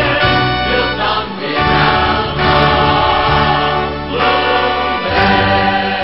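Choral music: a choir singing over instrumental backing, the chords changing every second or so.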